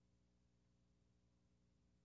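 Near silence, with only a faint steady low hum in the broadcast feed.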